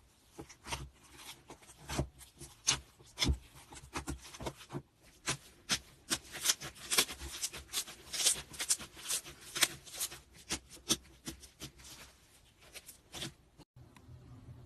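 Slime being squished and poked by hand: a rapid run of sticky clicks and pops, busiest in the middle and thinning out near the end.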